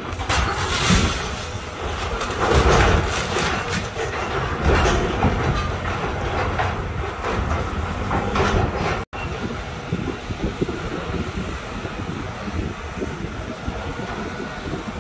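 Excavator demolishing a wood-frame house: repeated loud crashes of breaking debris over the running machine, then after about nine seconds a steadier, quieter rumble.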